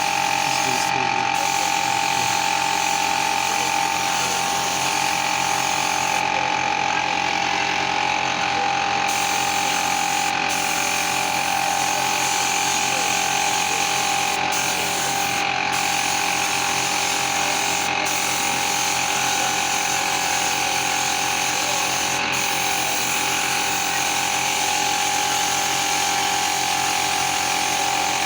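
A small motor-driven tool running steadily without a break, with a constant high hum.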